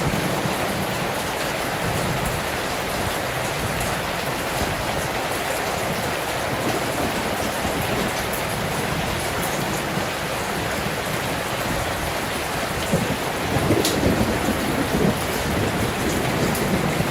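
Steady heavy rain heard from indoors, a dense even hiss with scattered drop ticks, swelling into a louder low rumble about thirteen seconds in.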